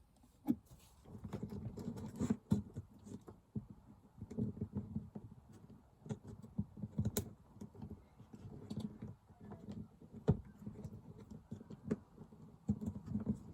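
Irregular rustling and light clicks of wiring and a spotlight fitting being handled and pushed into place by hand.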